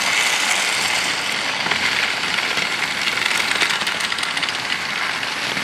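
Motorised TrackMaster toy trains running steadily on plastic track close by: the small electric motors and wheels make a constant mechanical whir.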